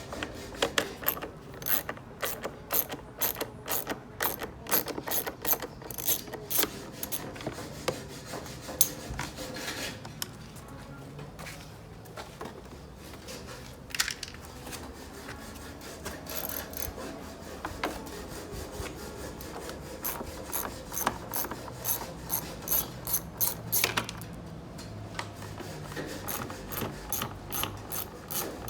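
Hand ratchet clicking in quick runs with short pauses between, as screws are backed out of an A/C evaporator housing.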